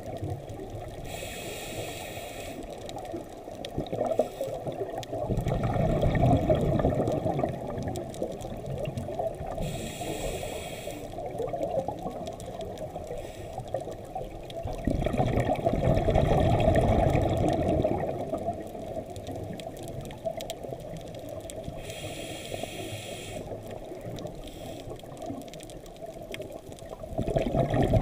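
Scuba diver breathing through a regulator, heard muffled through an underwater camera housing. It runs in slow cycles of a short hiss followed a few seconds later by a longer rush of bubbles, three times over, against a steady underwater wash.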